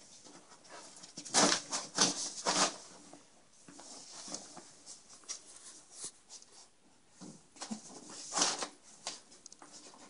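Plastic shower curtain rustling and scraping in several short bursts, a cluster of three loud ones about a second and a half in and another near the end, as a cat paws and pounces at it.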